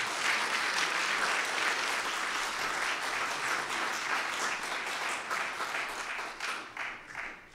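A small audience applauding. The clapping thins out to a few scattered claps and dies away near the end.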